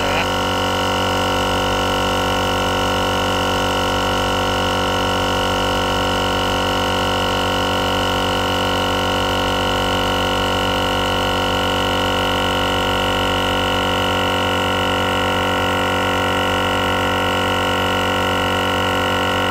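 GSPSCN dual-cylinder 12V portable air compressor running steadily, a constant even hum, while inflating a truck tire toward 40 psi.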